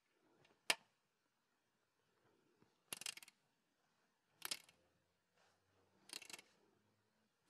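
Hand socket ratchet clicking in four short bursts about a second and a half apart, with one sharp single click about a second in. It is snugging the bolt of a transmission oil cooler line fitting.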